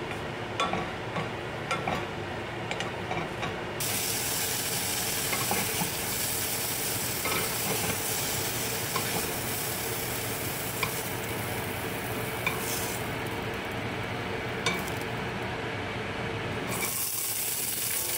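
Sliced shiitake mushrooms sizzling in oil in a nonstick pot, with a wooden spatula clicking and scraping against the pot in the first few seconds. About four seconds in, the sizzle turns brighter and hissier.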